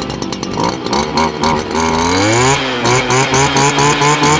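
Stihl FS230 brush cutter's 40.2 cc two-stroke engine running just after a cold start, given gentle throttle while the fuel comes up evenly. The revs climb about halfway through, then hold higher with a pulsing in loudness about three times a second.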